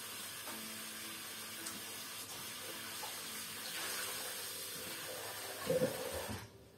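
Water running from a tap into a sink, turned off abruptly near the end, with a louder knock just before it stops.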